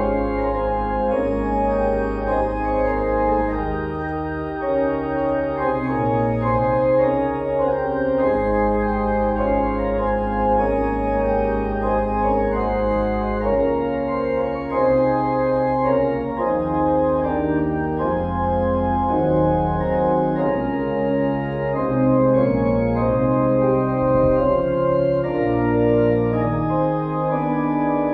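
Church organ playing the postlude after the service: sustained chords over low bass notes that change every second or two.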